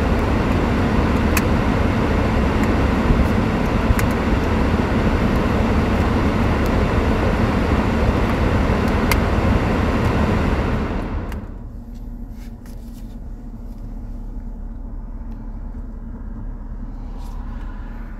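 Car cabin background noise from the running air conditioning: a steady loud rushing over a low road-and-engine rumble, heard through the action camera's built-in microphone. About eleven seconds in, the rushing cuts out fairly suddenly and only the lower rumble remains.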